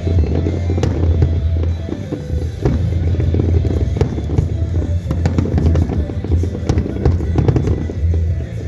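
Fireworks going off in a rapid, irregular string of bangs and crackling pops over loud music.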